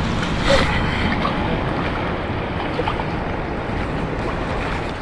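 Steady wind buffeting the microphone, a constant rumbling rush.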